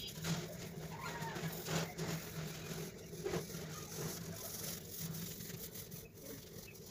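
Coloured pencil scratching and rubbing on paper as an area is shaded in with short back-and-forth strokes, over a low steady hum.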